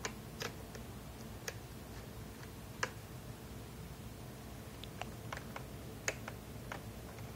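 Light, irregular clicks and taps of a small Phillips screwdriver and tiny screws against the plastic screen bezel of an Asus U52F laptop as its screws are being removed. About a dozen scattered clicks, the sharpest about three and six seconds in.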